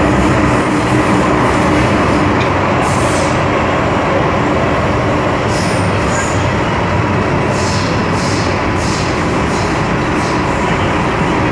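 MTR Island Line M-Train metro running at steady speed: a continuous rumble of wheels and traction equipment, with faint motor tones and brief high-pitched wheel squeals every second or so.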